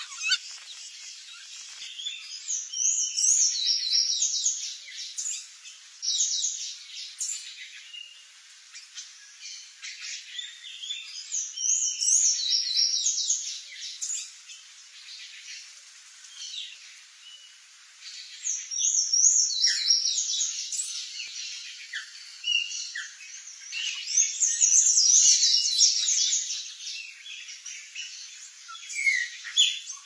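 Small birds chirping and singing in high, quick trills and twittering phrases. The singing comes in spells of a few seconds with quieter gaps between, four or five times over.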